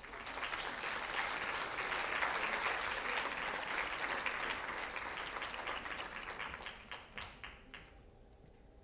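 Audience applauding in an auditorium, thinning out to a few scattered claps near the end.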